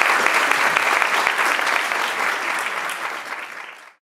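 Audience applauding, the clapping fading out near the end and giving way to silence.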